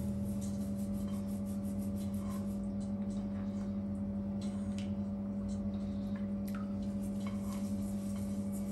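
A steady low hum with a fainter higher tone above it, and a few faint clicks scattered through.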